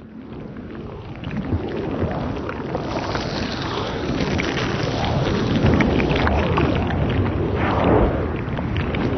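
Dark, noisy rumbling outro sound effect that builds in loudness over the first few seconds and then holds.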